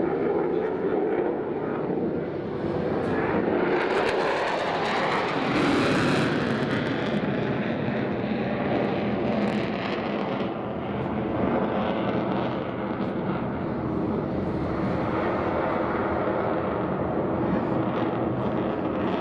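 F-16 fighter jet's engine noise overhead: a continuous rushing jet noise that swells and brightens about five seconds in, then holds steady.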